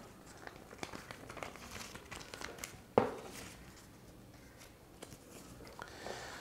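Faint rustling and crinkling of a folded paper instruction manual and warranty card being handled, with one sharp tap about three seconds in.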